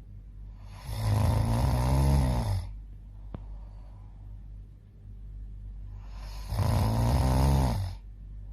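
Snoring: two long, loud snores about five seconds apart, with quieter breathing sounds between them.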